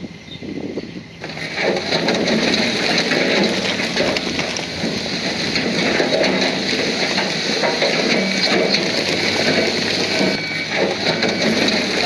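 Bulldozer working: a loud, steady rush of engine and track noise that starts abruptly about a second in.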